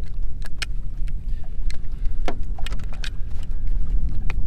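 Wind buffeting the microphone with a heavy low rumble, and a scattering of light clicks and taps from hands working a plastic fishing float and line.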